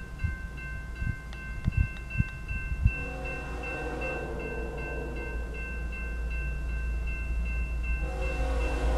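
Railroad crossing bell ringing in steady, even strokes while the approaching freight's lead locomotive sounds its horn: one long blast from about a third of the way in, and another starting near the end. A low rumble underneath grows louder as the train nears.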